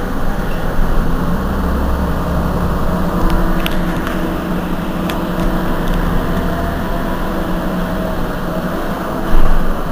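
Heuliez GX 127 city bus's diesel engine idling steadily while standing at a stop, with a few light clicks and a brief louder noise near the end.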